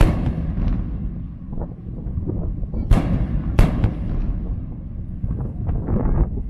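Aerial firework shells bursting overhead: a sharp bang right at the start, then two more bangs close together about three seconds in, each followed by a rumbling echo. A quick run of smaller cracks follows near the end.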